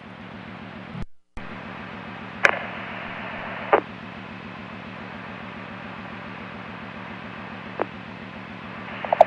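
Radio scanner channel hiss with a low buzzing hum, heard with no one transmitting. It cuts out for a moment about a second in, and a few faint clicks come through.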